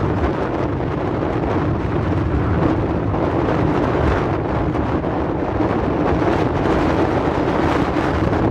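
Strong wind buffeting the microphone, a steady dense rush over a constant low rumble.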